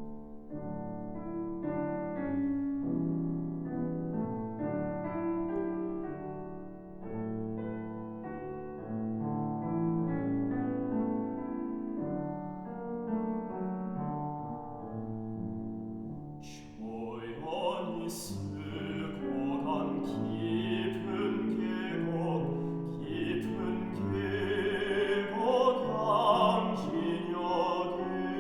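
Classical piano playing alone, joined a little over halfway through by a baritone singing with the piano accompanying him.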